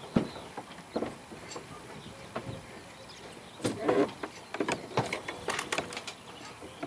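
Sailboat rigging and deck hardware creaking, clicking and knocking at irregular moments as the boat moves slowly. The loudest stretch is a cluster of rasping creaks about four seconds in.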